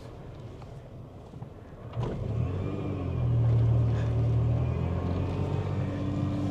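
Supercharged 1998 Toyota Tacoma's engine running low for about two seconds, then revving up as the truck accelerates and holding at a steady higher pitch.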